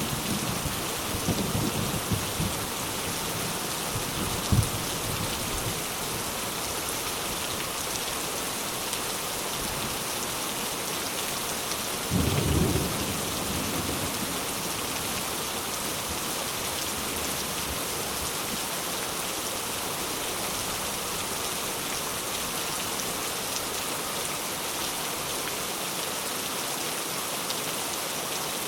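Steady rain with thunder. A rumble fades out over the first couple of seconds, a short low thump comes about four and a half seconds in, and another brief rumble about twelve seconds in.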